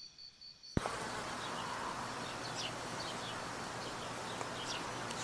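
Outdoor nature recording: a steady background hiss that starts suddenly about a second in, with faint short chirps repeating now and then.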